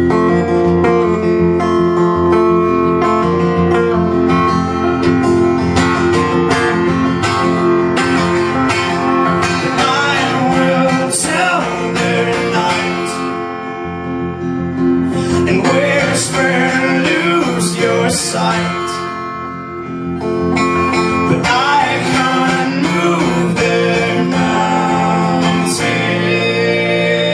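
Live acoustic folk band playing an instrumental passage: acoustic guitar strumming over sustained low notes, with voices audible in places. The loudness dips briefly twice before building again.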